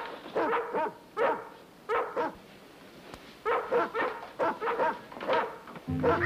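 Dogs barking: about a dozen short, high barks, some in quick pairs and runs, with a pause of about a second in the middle. Music with held notes begins just before the end.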